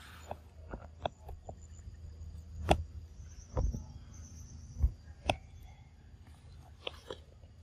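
Irregular sharp clicks and taps, the loudest nearly three seconds in, with two dull low thumps near the middle, over a faint steady low rumble.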